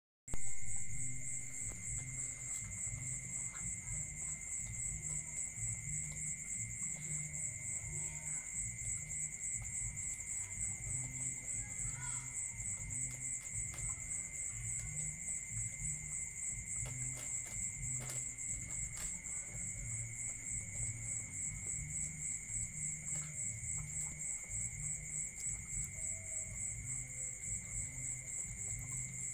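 Crickets chirring steadily, in two high trills, over the dogs' low, uneven munching and scattered clicks as they eat rice from plastic tubs.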